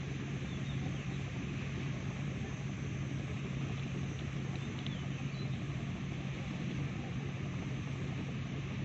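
Boat engine running steadily with a constant low hum, under a rush of wind and water noise.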